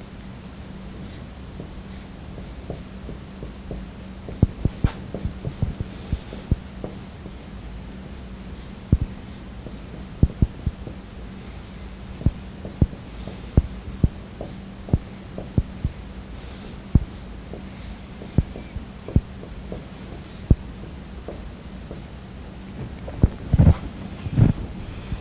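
Dry-erase marker writing on a whiteboard: faint high squeaks from the strokes and many sharp taps as the tip strikes the board, over a steady low hum. A few heavier knocks come near the end.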